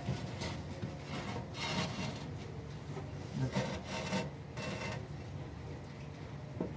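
A few rasping scrapes as the oil pan of a Toyota 2AZ engine is pushed and slid by hand into place against the engine block.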